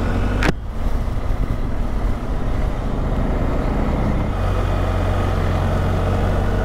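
BMW R1250GS boxer-twin engine accelerating on the road, with wind rumble. A sharp click comes about half a second in, and the engine note rises again near the end.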